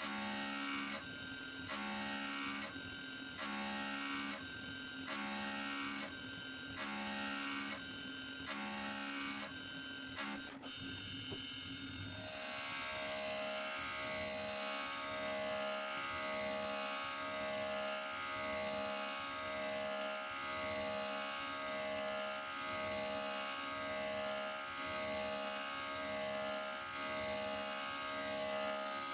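Background electronic music: sustained synth chords pulsing about every second and a half, then switching to a faster repeating pattern about twelve seconds in.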